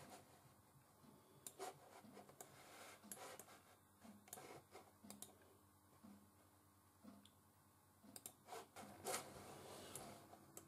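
Faint, irregular clicking of a computer mouse in small clusters over near-silent room tone, the loudest clicks near the end.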